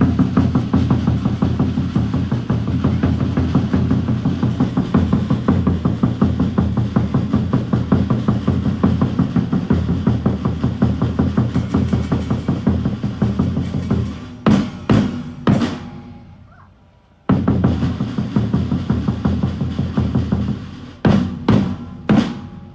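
Drum music with a fast, driving beat. It breaks off for about a second two-thirds of the way through, then starts again, and sharp, loud hits come in threes twice: once before the break and once near the end.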